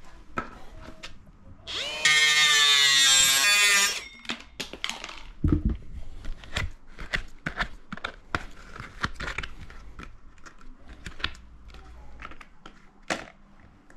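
A power tool runs in one loud burst of about two seconds, cutting through the bottom of a thin plastic flower pot. It is followed by a string of scattered sharp clicks and light knocks.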